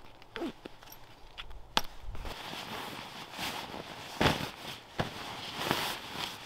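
Sleeping bag fabric rustling and swishing as the bag is lifted, gathered up and folded, with a few sharp snaps and clicks mixed in.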